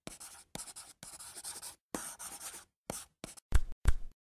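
Pen scratching on paper in a run of quick separate writing strokes, then two louder taps near the end, after which it stops dead.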